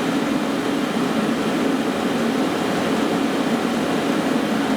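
5 kW diesel air heater running at full power: a steady roar of burner and exhaust over the hum of its blower fan.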